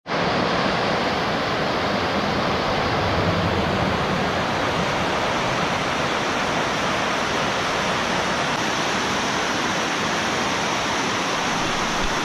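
River rapids rushing over rocks: a steady, even roar of white water.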